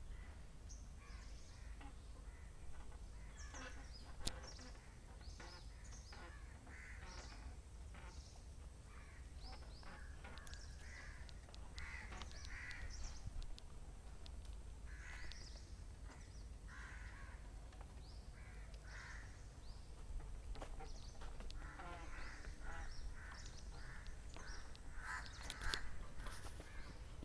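Birds calling in the trees: repeated harsh caws and many short, high chirps scattered through, over a low steady rumble.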